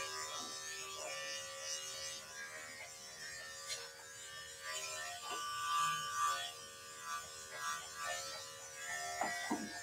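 Electric dog grooming clippers running with a steady hum as a small dog's coat is trimmed.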